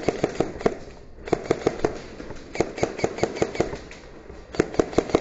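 Airsoft guns firing in four quick bursts of sharp snapping shots, about seven shots a second, with short pauses between bursts.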